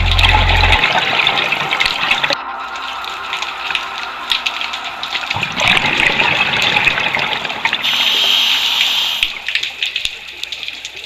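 Scuba regulator exhaust bubbles heard underwater: two long bursts of gushing, crackling bubbles, one at the start and one from about five and a half seconds to about nine seconds in, with a quieter hiss between them. A steady low hum stops within the first second.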